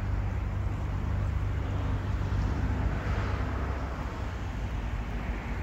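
A steady low engine hum over outdoor noise, with a rush of noise swelling about three seconds in and easing off.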